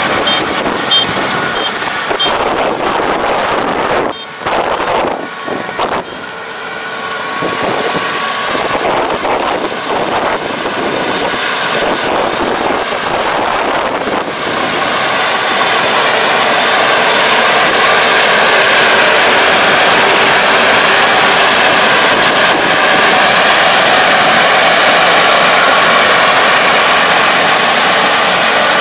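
Kubota DR575 five-row combine harvester running while cutting rice, its engine and machinery a dense, steady din that grows louder over the first half and then holds steady as the machine comes close.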